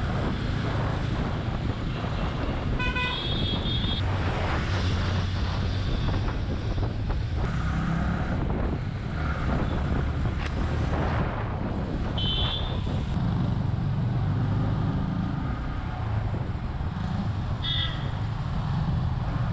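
Motorcycle running through city traffic, a steady engine and road rumble heard from the moving bike. Vehicle horns toot briefly: one a few seconds in, and two short, higher toots later on.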